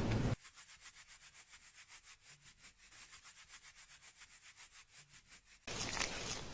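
Fingers scrubbing a lathered scalp during a salon shampoo. It starts as a loud rubbing, drops off suddenly to faint, quick rhythmic strokes of about five a second, and the loud rubbing comes back near the end.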